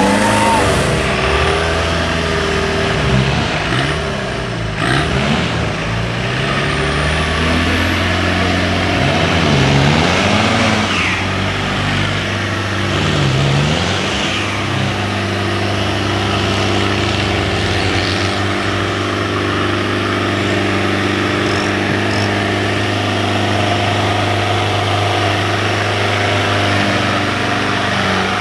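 Off-road 4x4 race vehicle's engine revving up and down repeatedly, then running at a steady pitch for the second half.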